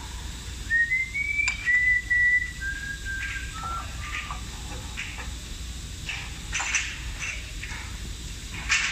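A person whistling a few held notes that step down in pitch over the first few seconds, then several short knocks and clatters as hands work at a metal milling machine.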